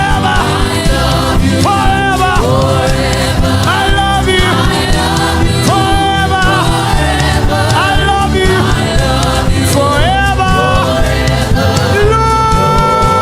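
Gospel worship music: a choir singing over instrumental accompaniment, each phrase sliding up into long held notes.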